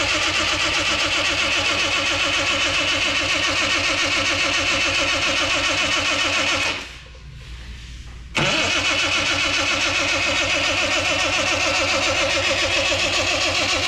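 Triumph engine cranked over by its starter motor in two long, even, rhythmic bursts with a short pause between. It turns over without firing or catching.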